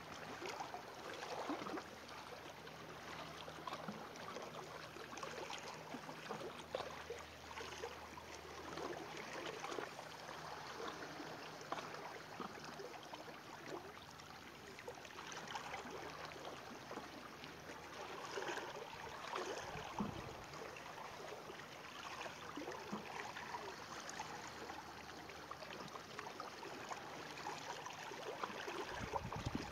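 Water washing and gurgling among shoreline rocks, a steady trickling and splashing with no bird calls. A dull low thump comes about two-thirds of the way through and again near the end.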